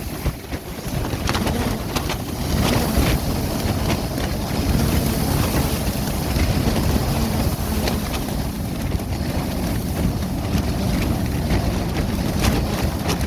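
Strong wind buffeting the microphone with a low rumble, while the sheeting of a clear plastic tent flaps and snaps sharply and irregularly in the gusts.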